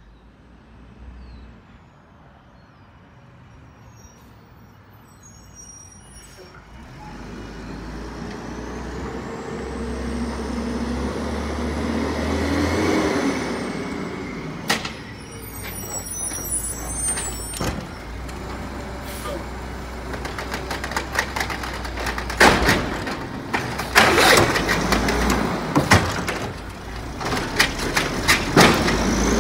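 Diesel engine of an old 2001 Mack LE garbage truck with an Amrep side loader, running and growing louder as the truck approaches and slows to a stop; the engine has the growl the owner says these LEs give near the end of their life. Near the end come a series of sharp knocks and hisses, typical of air brakes as the truck stops.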